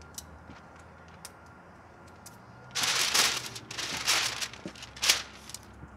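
Masking tape being pulled off its roll in three short rasping rips, starting a little before halfway through.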